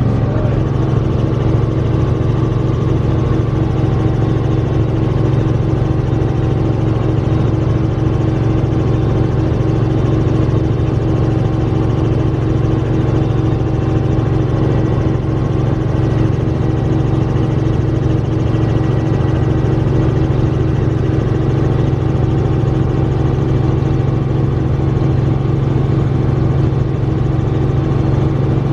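Helicopter engine and rotors running steadily, heard from inside the cabin: a loud, even drone with a strong low hum and no change in pitch.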